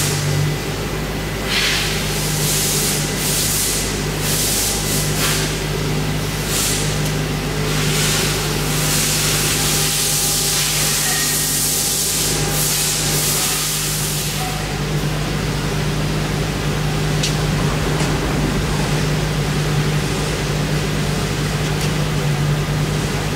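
Fadal VMC4020HT vertical machining center powered up and idling, giving a steady low hum. Through about the first fifteen seconds, repeated short bursts of hiss come and go over the hum.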